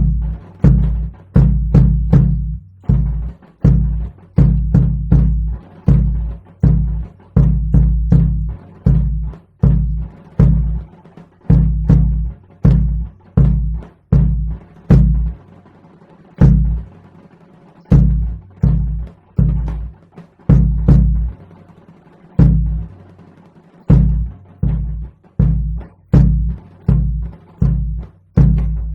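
Percussion ensemble playing a driving rhythm of loud, deep drum strokes that ring briefly, with sharp higher strikes on top and a few short breaks in the pattern.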